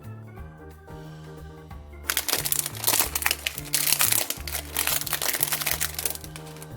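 Background music with a steady bass line; from about two seconds in, dense crinkling and rustling of packaging being handled while a new 3x3 speedcube is unpacked.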